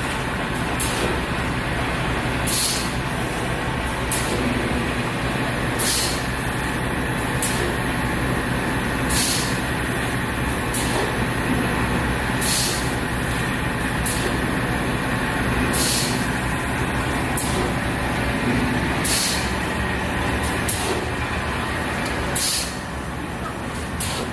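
Egg tray production line running: a steady machinery drone with a low hum, broken by short hisses about every one to two seconds.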